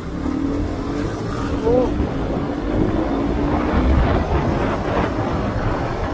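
Single-cylinder engine of a KTM RC125 sport motorcycle accelerating from a rolling start, its note climbing slowly under heavy wind rumble on the rider's microphone. A brief rising note comes in about two seconds in.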